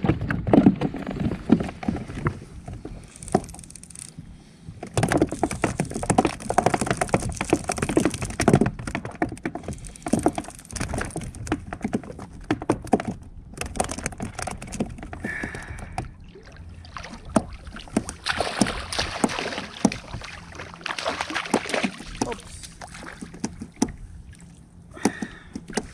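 Irregular knocks, clicks and water splashing on a fishing kayak as a hooked ray is reeled in on a heavily bent rod.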